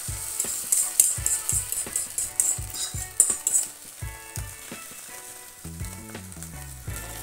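Beaten egg sizzling on a hot non-stick pan as it is poured over a roti, with a metal spoon scraping and tapping the pan as the egg is spread. The sizzle dies down about four seconds in, and background music with a bass line comes up near the end.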